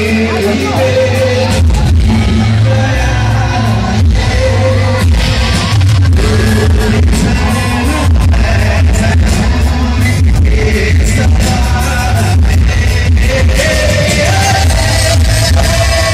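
Live band music played loud over a PA system, with a man singing into a microphone over a steady drum beat and strong bass.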